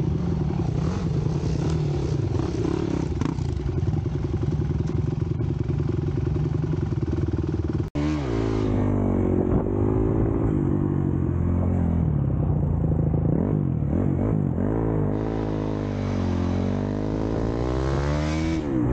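Honda CRF250X single-cylinder four-stroke dirt bike engine running at a fairly steady pitch under the rider. About eight seconds in, after a cut, it accelerates hard, the revs climbing and dropping back several times as it shifts up through the gears.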